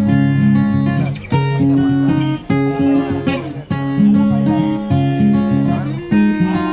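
Background music of strummed acoustic guitar, with a new chord struck about once a second.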